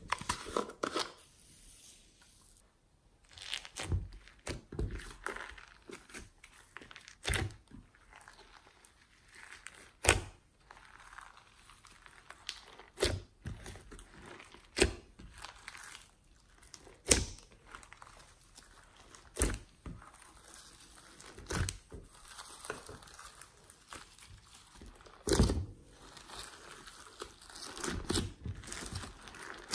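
Glossy slime being pressed, stretched and folded by hand in a glass dish, with soft sticky crackling and a sharp pop every two to three seconds.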